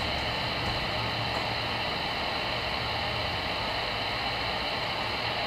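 Steady static hiss with a low hum from a Voyager CB radio's speaker on channel 22, the channel open between transmissions.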